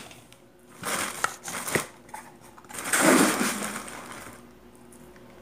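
Plastic food storage canisters and packaging being handled: a few sharp plastic clicks about a second in, then a longer rustle about three seconds in that fades away.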